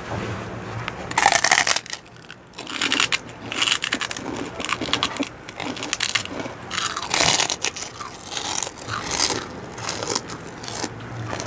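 Two people biting and chewing crispy pork chicharon (deep-fried pork rinds), with close, crackly crunches coming in clusters, one after another.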